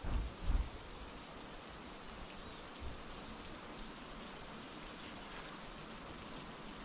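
Steady rain falling, an even hiss of rain. Short low thuds sound twice in the first second and once about three seconds in.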